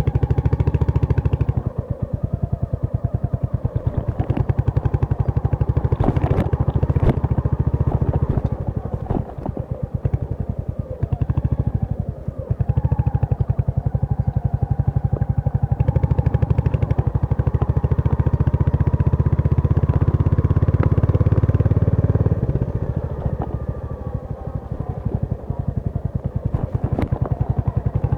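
Royal Enfield Hunter 350's single-cylinder engine running under way, a steady rapid exhaust beat that eases off and picks up again a few times as the throttle changes.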